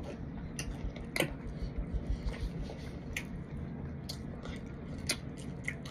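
Raw powdered starch being chewed, with about ten scattered sharp crackles over a low steady background.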